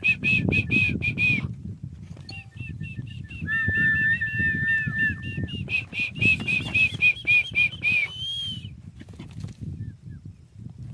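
Quick runs of high, short whistled notes, about four a second, coming in three runs with a steady held whistle of about two seconds in the middle. A low rustling rumble runs underneath.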